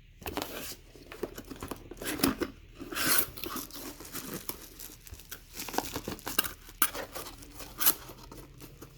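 Packaging of a new graphics card being torn open and handled: irregular tearing, crinkling and rustling throughout.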